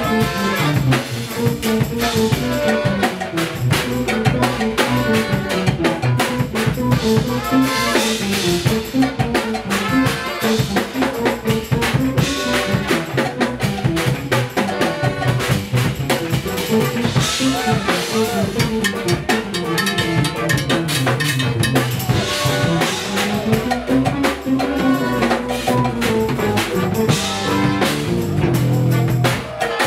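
Live jazz-fusion band playing: a drum kit drives a busy beat under an electric bass line, with saxophone and trumpet playing over it.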